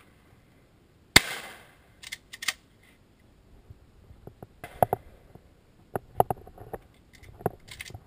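A single shotgun shot about a second in, with a short ringing tail. Two quick metallic clacks follow about half a second apart, typical of the action being worked. Then come scattered lighter clicks of the gun being handled.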